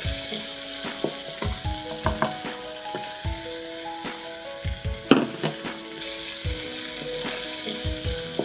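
Chopped pickled mustard greens and garlic sizzling in hot oil in a nonstick wok while being stir-fried with a wooden spatula, which knocks against the pan every half second or so, hardest about five seconds in.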